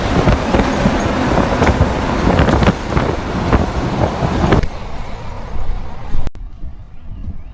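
Heavy truck road noise: a loud, rough rumble with scattered sharp knocks and no horn. It cuts off abruptly about halfway through to quieter traffic sound.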